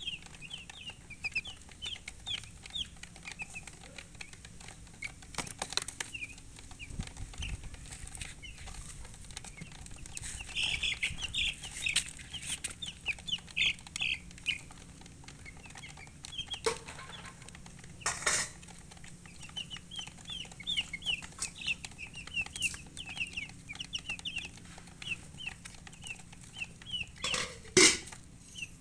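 Chickens chirping: runs of rapid, short, high-pitched peeps that pause now and then. A few sharp knocks break in, the loudest near the end.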